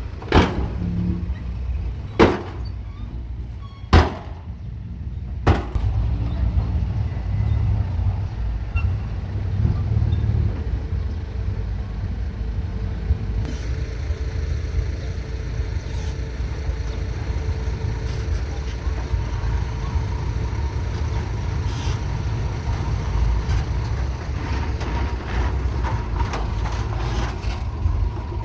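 Heavy diesel earthmoving machinery running with a steady low rumble, with four sharp knocks in the first six seconds.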